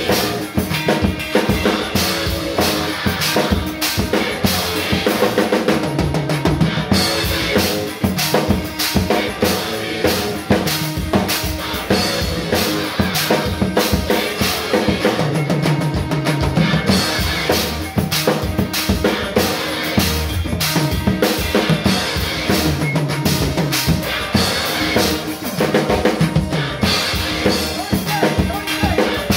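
Acoustic drum kit played continuously with sticks: bass drum, snare and cymbal hits in a busy groove. It is played along to a recorded song whose held bass and melody notes run underneath.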